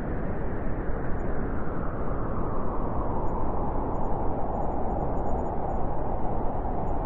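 Howling wind: a steady rushing noise with a hollow howl that swells in the second half.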